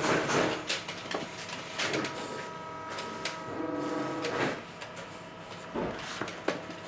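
Glass paper rasping against a cork rod grip in repeated sanding strokes, over a steady machine hum.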